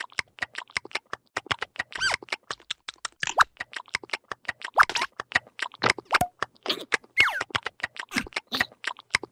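Cartoon larva characters chattering in wordless gibberish: a quick run of clicks mixed with short squeaky sounds that rise and fall in pitch.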